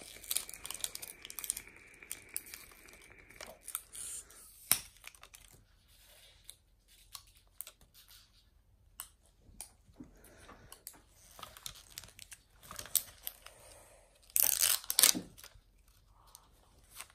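Wrapper layers of an L.O.L. Surprise ball being peeled and torn off by hand: on-and-off tearing and crinkling with small clicks, loudest in a short burst near the end.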